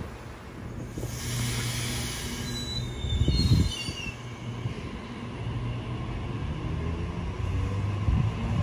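Sydney Trains Waratah A-set electric train pulling slowly out of the platform, with a steady low hum. A high hissing wheel noise starts about a second in, with brief falling wheel squeals and a louder rumble around the middle.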